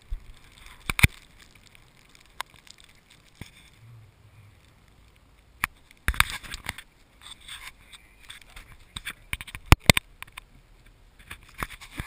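Handling noise from a hand-held action camera in its case: sharp knocks and scraping rubs, in a busier stretch about halfway through and again near the end.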